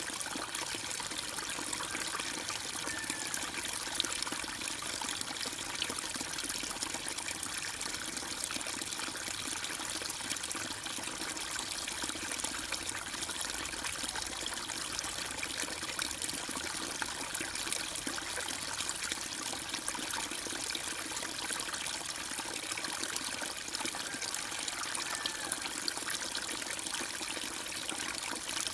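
Running water trickling steadily into a pond, an even splashing hiss without pause.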